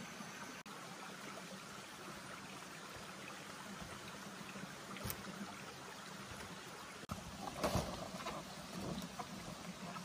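Steady hiss of outdoor ambience. In the second half it is overlaid by rustling and a few knocks as a large banana leaf is handled and laid over a shelter frame of bent poles.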